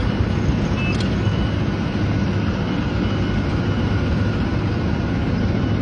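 Heavy construction vehicle engine running with a steady low rumble, its reversing alarm beeping faintly in an even rhythm.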